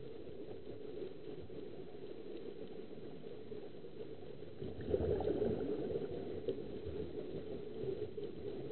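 Muffled, steady underwater bubbling from air escaping the divers' surface-fed helmets, heard through a waterproof camera housing. It grows louder about five seconds in.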